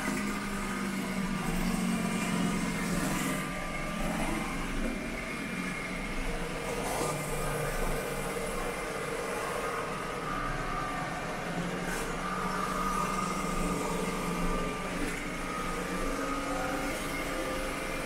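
Roomba S9+ robot vacuum running: a steady whine from its motor and suction fan, with a few faint clicks.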